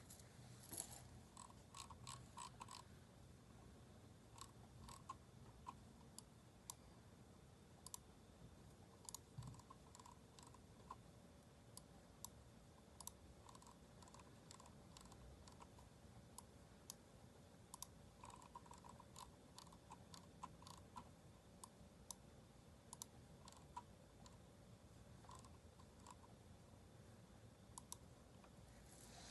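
Faint, sparse keystrokes on a Keychron K4 mechanical keyboard fitted with aftermarket keycaps: single clicks and short runs a few seconds apart, with steady typing picking up near the end.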